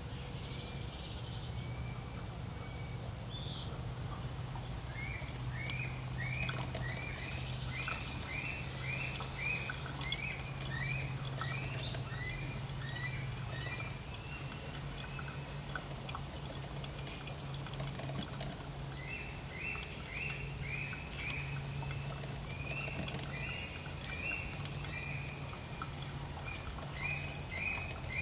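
Birds calling: runs of short, quick chirps, about two a second, that come and go over a steady low hum.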